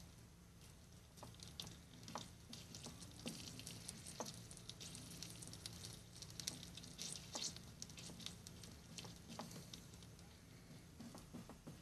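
Faint crackling and sizzling of solder and flux melting under a soldering iron tip, a scatter of small irregular pops and ticks that is busiest in the middle, over a steady low hum.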